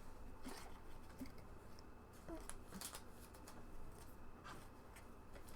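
Faint, scattered ticks and soft rustles of trading cards and their packaging being handled on a table.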